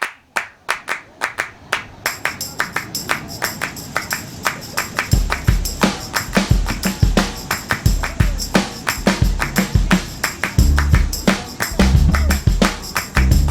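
Background music: a fast percussion rhythm with sharp tambourine-like strokes, joined by a heavy bass beat about five seconds in.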